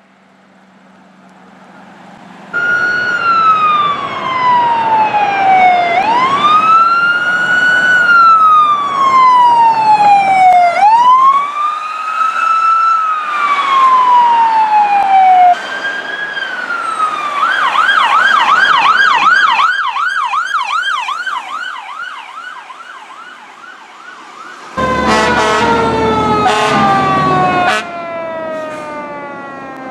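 Electronic sirens on responding fire department vehicles. They run in a wail, long sweeps that slide slowly down in pitch and snap back up, then switch to a fast yelp for a couple of seconds. Near the end another siren falls in pitch over the rumble of a fire engine.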